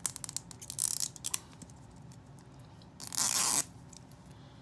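Packaging of an LOL Surprise Mini Sweets doll being opened by hand: a run of crinkles and clicks in the first second or so, then one short, loud tearing rip about three seconds in.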